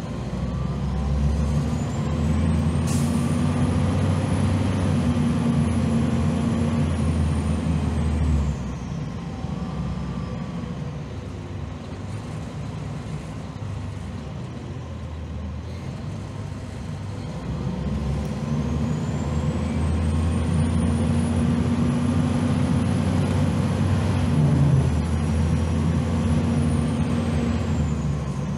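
On board a 2001 Gillig Phantom transit bus, its Cummins ISM turbodiesel straight-six pulls hard with a high whine that climbs in pitch, holds, then falls away about eight seconds in as the bus eases off. After a quieter lull of several seconds the engine pulls again about eighteen seconds in, the whine rising once more.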